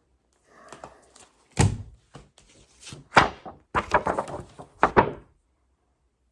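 A series of thumps and knocks: a loud one about a second and a half in, another around three seconds, and a quick cluster between four and five seconds.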